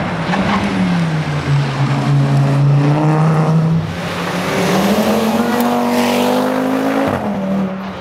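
Audi TT RS rally car's turbocharged five-cylinder engine at full race pace. The note dips, holds steady, then climbs for about three seconds before dropping sharply near the end.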